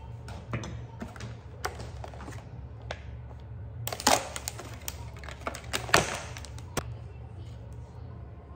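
Clear plastic clamshell fruit pack being handled and opened: scattered clicks and plastic crackles, loudest about four and six seconds in.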